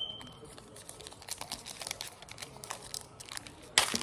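Plastic wrapper of a basketball card pack crinkling as it is handled, then torn open with one sharp rip near the end; the rip is clean.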